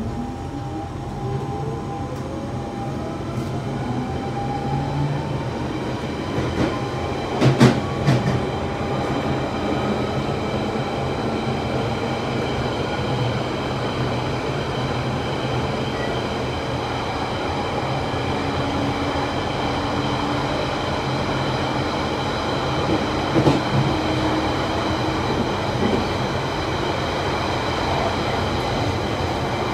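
London Underground Central Line 1992 Stock train heard from inside the carriage, pulling away with a motor whine that rises in pitch over the first few seconds, then running steadily along the track. A short burst of wheel clacks comes about eight seconds in, and a lighter one later on.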